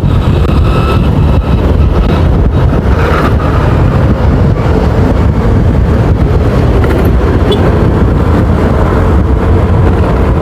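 Motorcycle on the move, heard from the rider's own microphone: steady engine and road noise with a heavy, constant low rumble and no marked changes.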